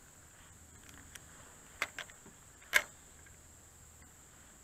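Steady high insect drone, with a few sharp clicks, the loudest near the end of the third second.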